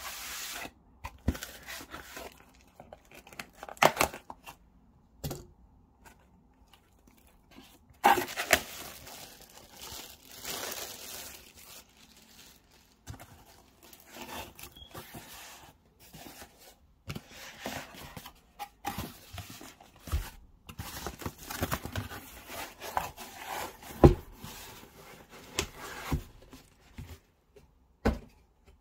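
Packing tape on a cardboard shipping box being slit and torn, then the cardboard flaps opened and the box handled, in irregular scrapes, rustles and knocks, the loudest knock late on.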